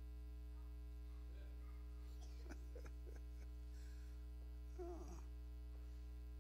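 Steady electrical mains hum on the sound system's recording, with a few faint clicks near the middle and a brief faint wavering sound about five seconds in.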